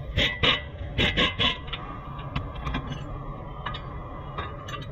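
A pneumatic wrench on a front-suspension nut, fired in short bursts: five quick blips within the first second and a half. After them come a few light metal clicks from handling parts, over a steady low hum.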